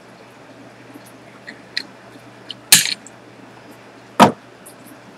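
Side cutters clipping a 14-gauge sterling silver prong wire: two sharp metal clacks about a second and a half apart, the first the brighter.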